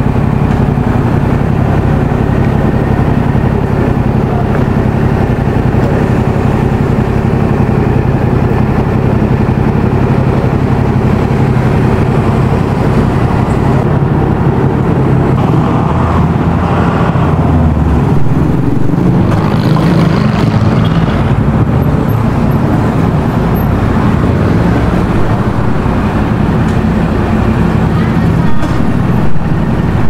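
Yamaha XSR700's 689 cc parallel-twin engine idling steadily, heard close to the exhaust. About midway a second motorcycle rolls up close by, briefly adding to the sound.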